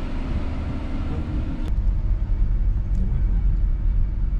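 Car driving slowly, heard from inside the cabin: a steady low rumble of road and engine that sets in abruptly about a second and a half in, after a short stretch of open-air ambience.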